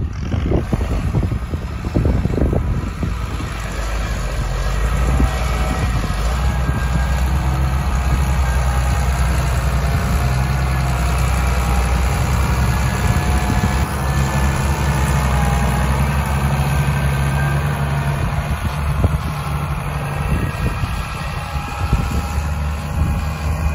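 New Holland 8340 six-cylinder turbocharged diesel tractor engine running steadily while the tractor pushes soil with its front blade, a fainter high whine over the low engine note. Wind buffets the microphone in the first couple of seconds.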